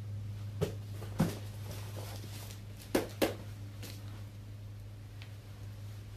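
A few light knocks and clicks, two of them in quick succession around three seconds in, over a steady low electrical hum.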